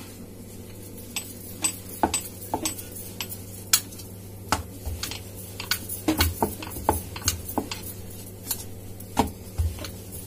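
Wooden rolling pin rolling out dough on a round wooden board (chakla), giving irregular clicks and knocks, about two a second. A steady low hum runs underneath.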